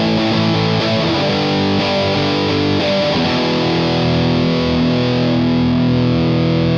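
Gibson Non-Reverse Firebird electric guitar played through an Orange OR-series valve amp with distortion: picked riffing for the first few seconds, then a chord held and left ringing from about halfway through.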